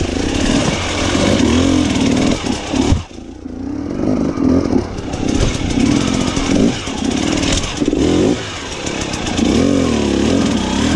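Enduro dirt bike engine heard from on board, revving up and down in short bursts as the bike is worked over large loose rocks. It drops back briefly about three seconds in, then picks up again.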